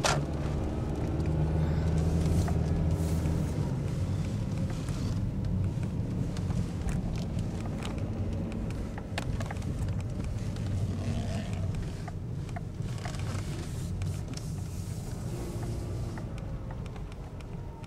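Car engine running at low speed with tyre rumble, heard from inside the car as it drives slowly; its pitch shifts a little in the first few seconds and the sound gradually eases off toward the end.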